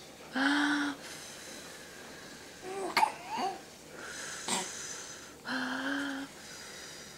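Baby blowing raspberries: two voiced lip buzzes of under a second each, one just after the start and one about five and a half seconds in, with a short wavering coo between them.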